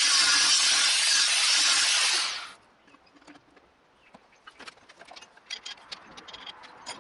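A power tool cutting runs loudly and steadily, then stops abruptly about two and a half seconds in. Scattered light clicks and rattles follow.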